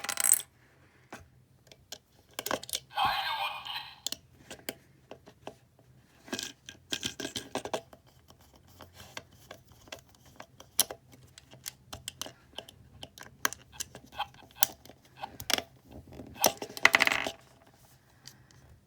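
Small hard parts clicking, tapping and rattling as they are handled, in scattered clicks with busier bursts about three seconds in, around seven seconds and near the end.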